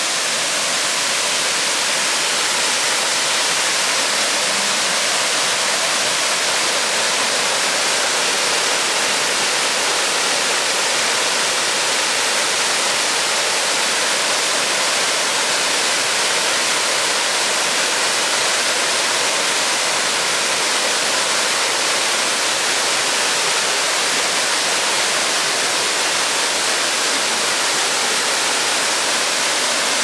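Kuang Si Waterfall's tiered cascades pouring over travertine ledges into a pool: a steady, full rush of falling and splashing water.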